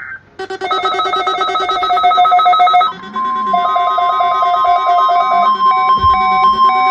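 Loud electronic weather-radio warning alarm: for about three seconds a rapid, ringing pulse of several stacked tones, then a steady tone of about 1 kHz, the NOAA Weather Radio 1050 Hz warning alarm tone, with other tones beeping on and off over it.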